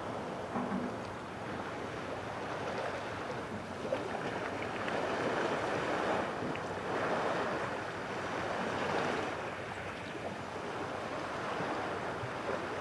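Wind on the microphone and water lapping at the shore: a steady rush that swells and eases every second or two, with a faint knock about four seconds in.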